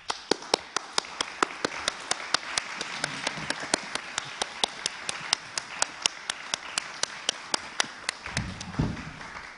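Audience applauding, with one person clapping close to a microphone in sharp, even claps about four a second over the crowd's applause. The applause thins near the end, with a couple of dull low thumps.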